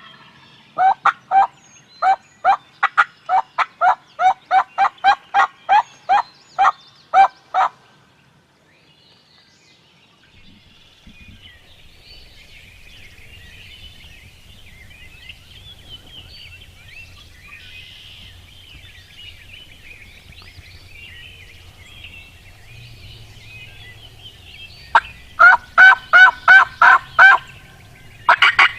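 Turkey calling in a long run of evenly spaced, loud calls, about three a second, for the first eight seconds. Then faint songbirds chirp for a while, and a second loud run of turkey calls starts near the end.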